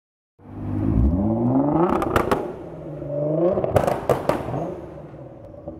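Tuned Nissan GT-R's twin-turbo V6 revving up twice, each rev ending in a quick run of three sharp exhaust pops and bangs (backfire) as the throttle closes; the engine sound fades near the end as the car pulls away.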